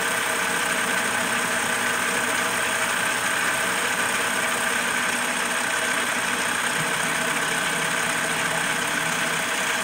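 CNC-converted lathe running steadily, its tool taking a finishing pass along an aluminum workpiece: an even machine hum with the sound of cutting, unchanging throughout.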